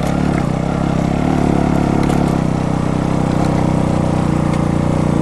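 A motorcycle engine running steadily while under way.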